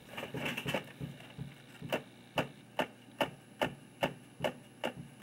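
Buttons on a handheld MTH model-train remote clicking: a quick flurry of clicks at first, then single sharp clicks at an even pace of about two and a half a second.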